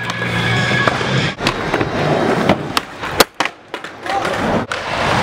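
Skateboard wheels rolling on a concrete floor, broken by several sharp clacks of boards and bodies hitting the ground as skaters fall; the loudest clack comes about three seconds in.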